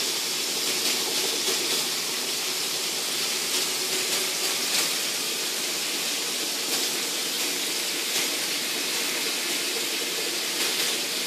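Chicken pieces frying in hot oil in a frying pan: a steady sizzling hiss with faint crackles.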